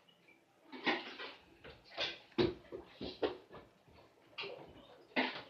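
An irregular series of knocks and rustles, about a dozen short sharp taps spread over a few seconds, the loudest about two and a half seconds in and again a second later.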